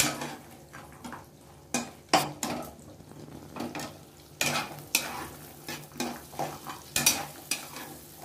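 Spatula scraping and stirring cashews and dried red chillies in a non-stick kadai, with irregular strokes. Butter sizzles underneath as the cashews roast.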